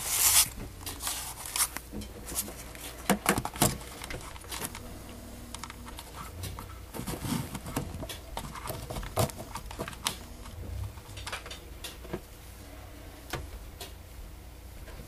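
Handling noise on the camera's microphone: a loud rustle as the camera is moved at the start, then scattered soft clicks and rustles at irregular intervals over a faint low hum.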